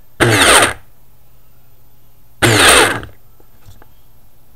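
Small pulse-driven electric motor of about 50 watts kicking into a brief spin on each pulse and stopping again: two short whirring bursts about two seconds apart, with a faint steady hum between them.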